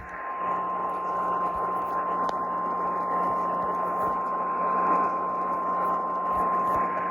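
A single steady alert tone, the National Weather Service's 1050 Hz warning alarm, sounding unbroken as it is relayed over AM radio. Radio hiss and a faint low hum lie beneath it.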